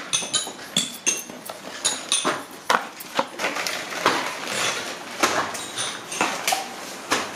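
Hand work with cardboard firework tubes in a fireworks workshop: irregular knocks and clinks, a few a second, some with a short metallic ring.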